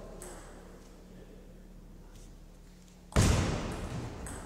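Table tennis doubles rally in a hall: a few faint ball ticks, then a sudden loud thump about three seconds in that dies away over a second.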